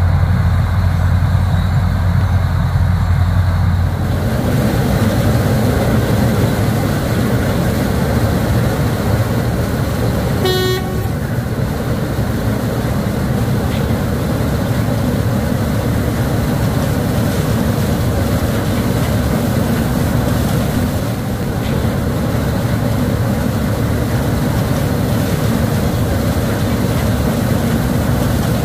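Wirtgen W 220i cold milling machine at work, a steady heavy running noise, with a strong low hum for the first four seconds. A single short horn toot sounds about eleven seconds in.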